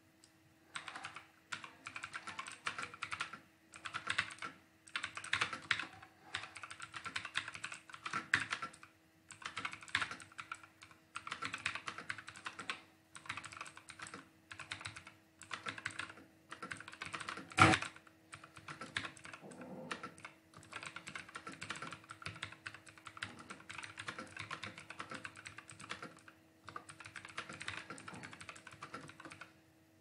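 Typing on a computer keyboard at about 59 words per minute: quick runs of key clicks broken by short pauses, with one much louder key strike a little past halfway.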